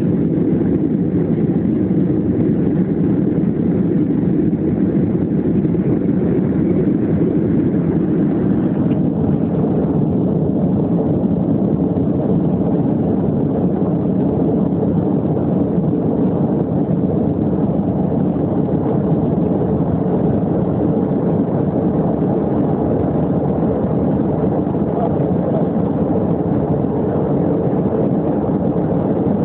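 Airplane cabin noise in flight: the steady, even noise of the engines and airflow heard from a seat inside the cabin, heaviest in the low-middle range, with no change in level.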